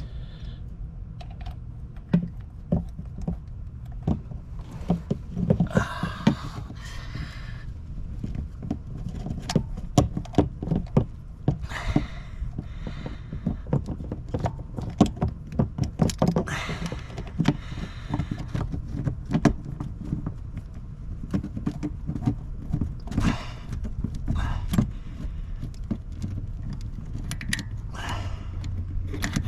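Metal hand tools, sockets and bolts clinking and knocking in irregular clicks while the oil filter housing bolts are run in and snugged, over a steady low hum.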